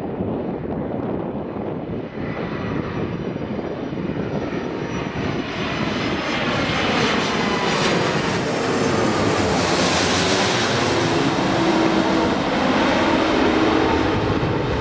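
Airbus A330-300 jetliner on landing approach with gear down, passing low overhead: a steady jet engine rumble and rush that grows louder and brighter as it comes directly over, then tones sliding down in pitch as it moves away.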